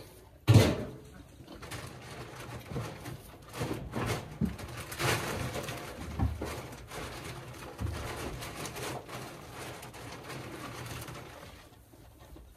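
Goats feeding at a feed trough in a wooden barn stall: knocking and bumping against the trough and boards, with one loud thump about half a second in, over a low, uneven background sound.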